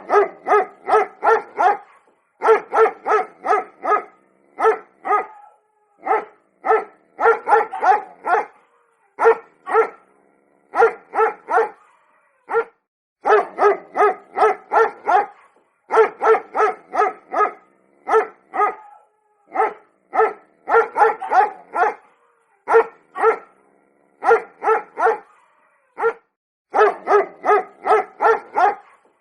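A Pomeranian barking in quick high yaps, about three to four a second, in runs of several with short pauses between them.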